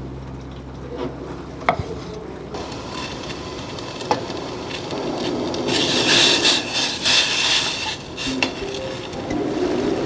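A few sharp knocks of a knife on a wooden cutting board as raw chicken breast is cubed. Then water splashes and sloshes in a stainless pot as the chicken pieces go in and are stirred with a wooden spoon, loudest about six to seven and a half seconds in.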